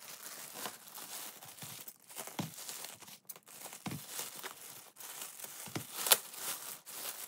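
Clear plastic bag crinkling and rustling as it is pulled and crumpled off a plush toy kitten, with many small crackles and a sharper crackle about six seconds in.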